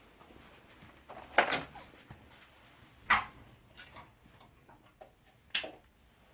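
Three sharp knocks or clicks about a second and a half to two seconds apart, the first followed by a few smaller taps, from parts of a wall-mounted air conditioner being handled as it is taken apart.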